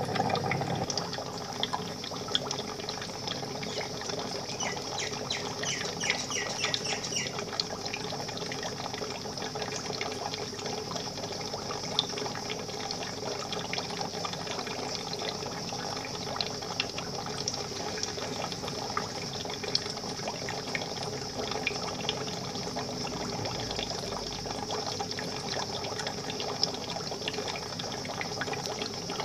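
Water in a goldfish fry tank bubbling and trickling steadily, with many small ticks throughout.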